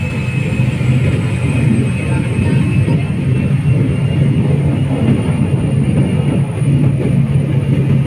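Single-engine turboprop of a Susi Air plane, heard from inside the cabin: a loud, steady engine drone with a faint high whine above it that rises slightly.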